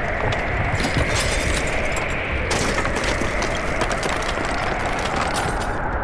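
A small motor on a DIY miniature construction machine runs steadily, with a continuous crunching, crackling noise over it.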